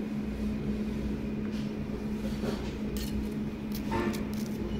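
A steady low hum with a few light clinks of chopsticks against a ceramic plate, about three and four seconds in.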